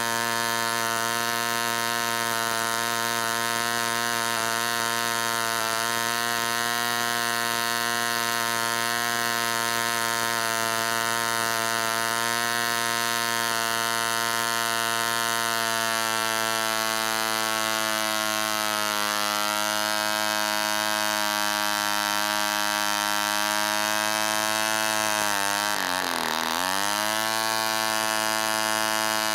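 Forster 29 spark-ignition two-stroke model aero engine running flat out at about 7,000 rpm on a test stand, turning an 11x6 propeller with a steady high buzz. Past the halfway mark the pitch sags a little. About three seconds before the end the revs drop sharply and then climb back.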